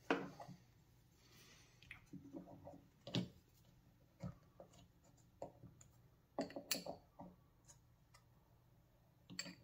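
Faint, scattered clicks and light taps of a small wrench and a plastic bleeder-kit fitting being handled at the brake line port of a master cylinder, with the loudest tap about two-thirds of the way through.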